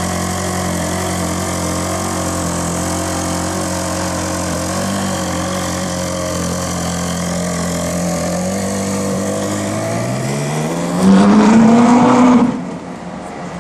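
Ferrari 458 Italia's V8 idling steadily, its note creeping up a little, then a short burst of acceleration about eleven seconds in: loud and rising in pitch for about a second and a half before it cuts off sharply.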